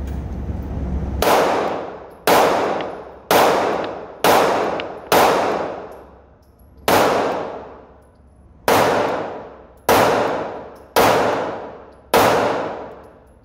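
Glock 19 9mm pistol firing about ten shots at a steady pace of roughly one a second, each a sharp report with a long ringing decay.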